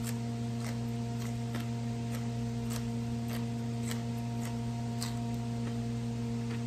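Steady electrical mains hum, with faint short clicks at a fairly even pace of about two a second.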